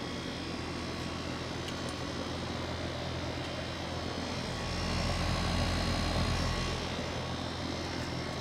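Goodman central air conditioner condensing unit running: a steady fan rush with a low compressor hum, which swells louder for a couple of seconds midway.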